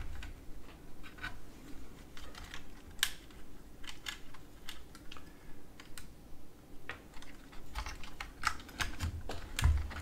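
Irregular light clicks and taps of small plastic parts being handled while a robot vacuum cleaner's wheel and motor assembly is taken apart by hand, a little busier near the end.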